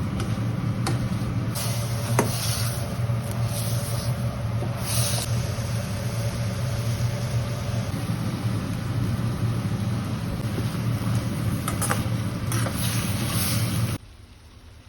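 Stir-frying in a wok under a running range hood: a steady low fan hum over a hiss of sizzling, with a few sharp clicks of the spatula. It cuts off abruptly about a second before the end.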